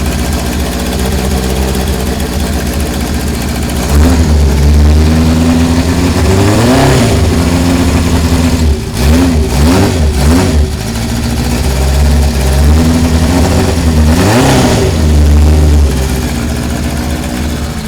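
Honda CB750 K4's air-cooled inline-four engine, freshly restored, idling and then being revved with the throttle. There is a rev about seven seconds in, a few quick blips around the tenth second, and another rev later on before it settles back to a steady idle near the end.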